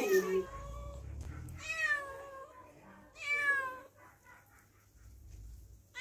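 A cat meowing several times, each meow about half a second long.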